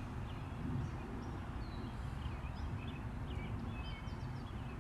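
Outdoor ambience: many short bird chirps, scattered and overlapping, over a steady low rumble.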